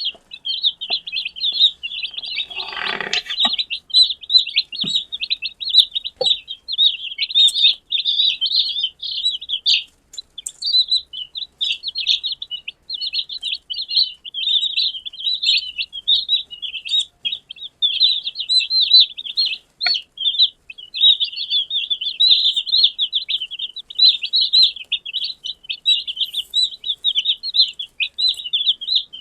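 A group of newly hatched domestic chicks peeping continuously, many high-pitched calls overlapping without a break. About three seconds in, a lower, fuller call lasting about a second rises above the peeping.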